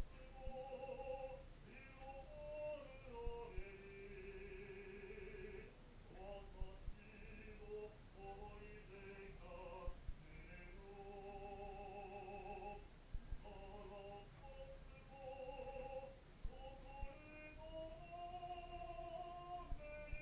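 A solo classical singer practising a song, holding long notes with vibrato and moving between pitches, with short breaks between phrases. A few faint, brief low knocks sound underneath.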